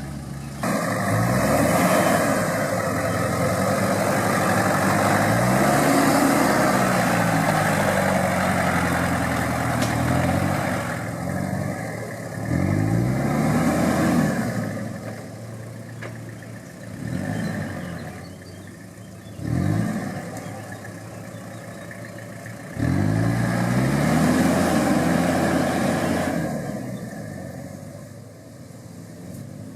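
Toyota Land Cruiser engine revving up and easing off repeatedly while driven off-road. It makes one long climb in pitch near the start, then several shorter rises and falls with quieter lulls between them.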